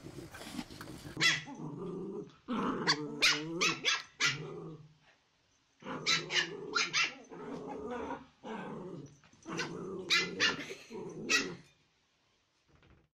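Puppies barking in three bouts of sharp barks, with growling between the barks; the barking stops shortly before the end.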